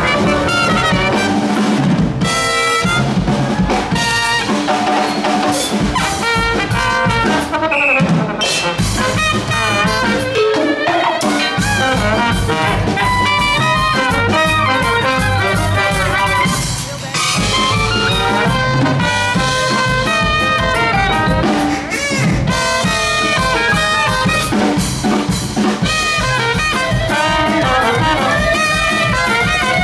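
Upbeat brass-led music with trumpets, trombone and a drum kit.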